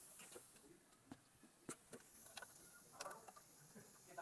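Faint clicks and light metallic ticks from hand tools working the 10 mm bolts of an automatic transmission oil pan, with a few sharper clicks scattered among them.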